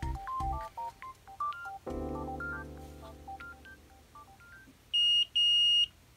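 Soft background music with a plinking melody that fades out over the first few seconds, then a multimeter's continuity beeper sounding twice, in two loud high beeps about five seconds in, as the probes touch a power-rail pad that is shorted on the NAND chip side of the SSD circuit.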